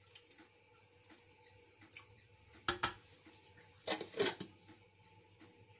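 Kitchen utensil handling: a glass bowl and silicone spatula knocking against a pan and being set down on the counter, with scattered light clinks and two louder clattering knocks about three and four seconds in.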